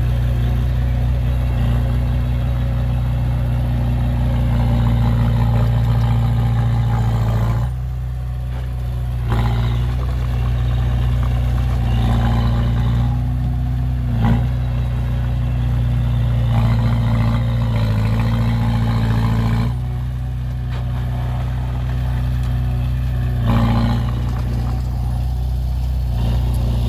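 Heavy diesel engine of a dump truck or bulldozer running with a steady low drone, working under load. It eases off twice for a second or so before picking up again.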